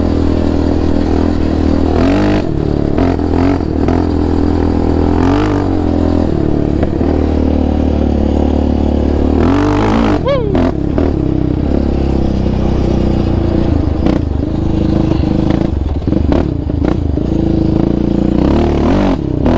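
Yamaha Raptor 700R quad's single-cylinder four-stroke engine with an aftermarket exhaust, heard on board while riding, its pitch rising and falling several times as the throttle is opened and eased off, with the sharpest rev about ten seconds in.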